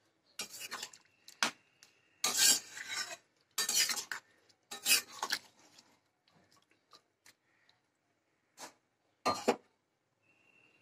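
A spatula stirring thick pea curry in a metal kadai, scraping and knocking against the pan in bursts about once a second for the first five seconds, then only a few scattered taps. A final sharp knock near the end as the spatula is set down against the pan.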